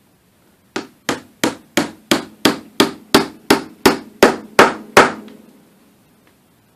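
Hammer tapping a metal tremolo stud bushing into a freshly re-drilled hole in a guitar's wooden body: about thirteen even strikes, roughly three a second, getting louder, the last one ringing briefly.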